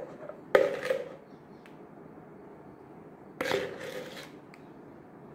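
A spoon knocking and scraping inside a plastic mixing bowl, scraping out the last of a sour cream and egg cake filling. It comes in two short bursts, each a sharp knock followed by a brief scrape.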